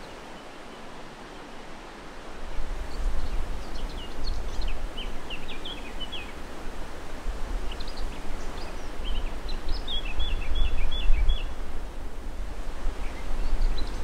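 Gusty wind on the microphone, a low rumble that swells about two seconds in and keeps gusting, over a steady hiss. Small birds chirp in two short runs of quick high notes, a few seconds in and again past the middle.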